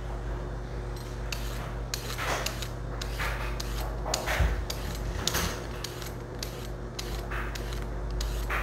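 Handheld swivel vegetable peeler scraping down a raw carrot in a series of short, irregular strokes, peeling it.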